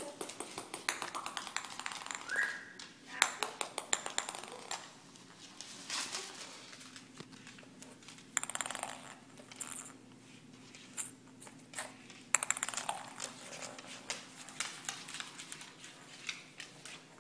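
A ping pong ball bouncing and rolling on a hardwood floor, heard as clusters of quick clicks, as a macaw plays with it. An African grey parrot talks in the background.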